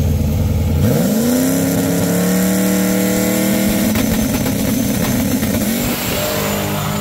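Drag-racing pickup truck's engine at the starting line: a low idle rumble, then about a second in it revs up sharply and holds at high rpm, and at about six seconds the note steps down as the truck launches down the strip.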